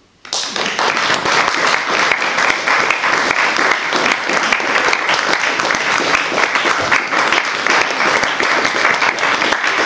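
A small audience clapping, breaking out suddenly just after the start and going on steadily.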